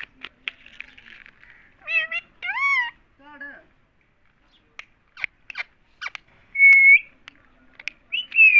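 Parrot calls: short rising and falling cries about two seconds in, scattered clicks, a held whistled note a little before seven seconds, and a falling squawk near the end.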